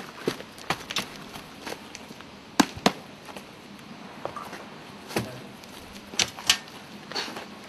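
A series of sharp, irregular knocks and clicks, about a dozen over several seconds, with the loudest pair a little over two and a half seconds in.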